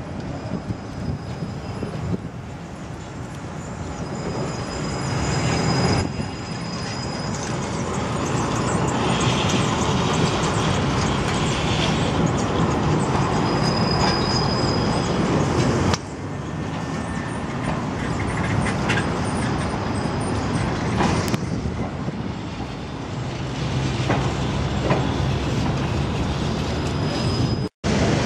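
Trams running past on street track: a steady rumble of wheels on the rails, with a few brief high-pitched squeals. The sound changes abruptly twice and cuts out for a moment near the end.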